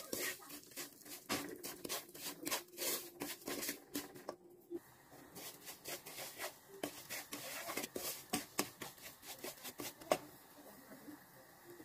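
A wooden spoon scraping and stirring sugar into melted butter in a pan: a steady run of gritty scrapes and light taps, with a sharper knock about ten seconds in.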